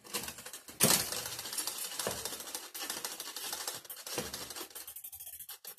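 Bicycle drivetrain: chain running over the chainrings with a fast rattle of ticks as the crank is turned by hand, after a sharp clack about a second in as the Shimano Deore XT front derailleur shifts down. The chain still rubs on the derailleur, a sign that the low-limit (L) screw needs adjusting.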